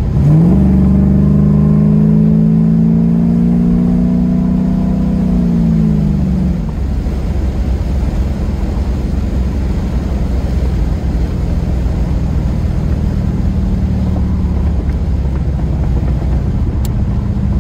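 LS1 V8 (out of a 2002 Camaro SS) accelerating hard: the revs shoot up at the start, climb for about six seconds, then fall away as it eases off into a steady low cruising drone of engine and road.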